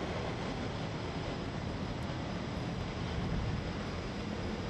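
Boeing 767-200ER's twin turbofan engines running at low taxi power: a steady, even jet noise as the airliner taxies past.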